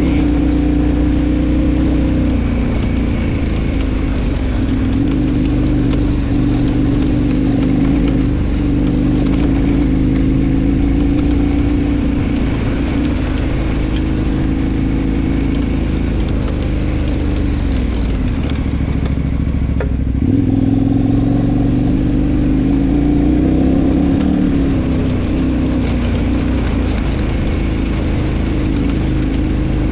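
KTM adventure motorcycle's engine running under way at a steady pitch; around eighteen seconds in the engine note falls as the bike slows, then rises again from about twenty seconds as it accelerates.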